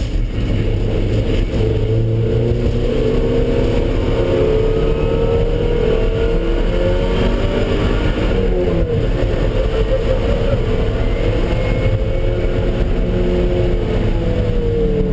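Car engine running under load on a race track, its pitch slowly rising and falling as the throttle changes.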